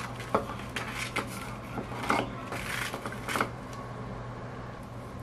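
Scissors cutting through a crisp sheet of dried laver (gim): a run of dry crackling snips for about three and a half seconds, loudest about two seconds in and near the end, over a steady low hum.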